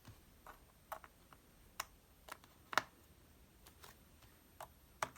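About ten light, irregular clicks and ticks of a small screwdriver on the tiny bottom-case screws of a MacBook Air as they are tightened by hand, the loudest almost three seconds in.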